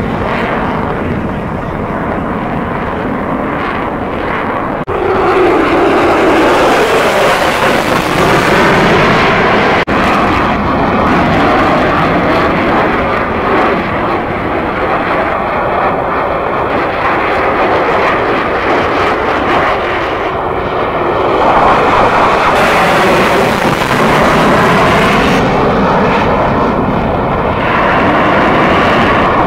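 Jet noise from a USAF F-22 Raptor's twin Pratt & Whitney F119 turbofans as it manoeuvres overhead. It is a loud, steady rushing sound that swells about five seconds in, with sweeps in pitch as the jet passes and turns.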